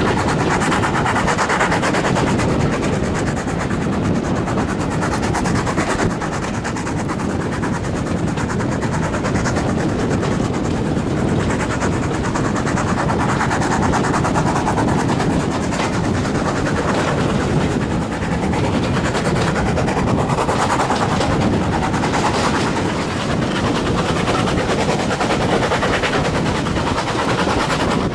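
A steam-hauled heritage passenger train running, heard from an open carriage window: a steady rumble of the carriages with a rapid clatter of wheels over the rails.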